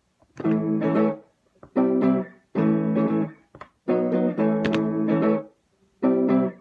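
A guitar playing chords in five short stretches, each lasting about a second, with short silences between them.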